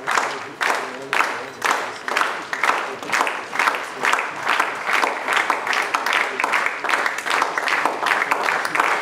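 Spectators clapping in unison, at about two claps a second, quickening to about three a second in the second half.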